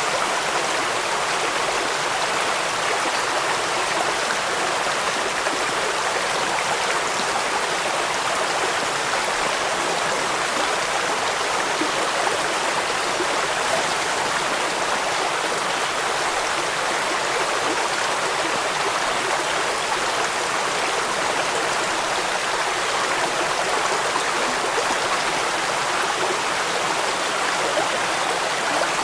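Steady rushing of running water mixed with rain, an even, continuous hiss with no single drops, splashes or other sounds standing out.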